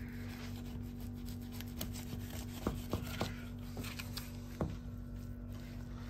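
Butcher's knife rubbing and scraping as it works through beef on a cutting block, with a few light knocks, over a steady low hum.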